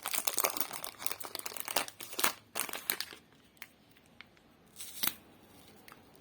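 Crinkling of a lollipop's plastic wrapper being handled. The crinkling is dense for about three seconds, then thins to a few separate crackles.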